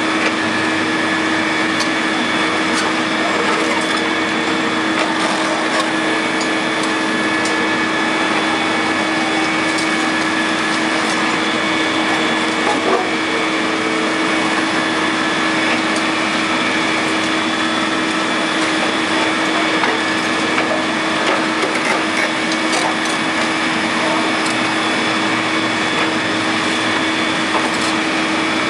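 Caterpillar 330C excavator running steadily with a constant droning tone while its demolition pincers crush a concrete bridge footing, with scattered sharp cracks and crunches of breaking concrete.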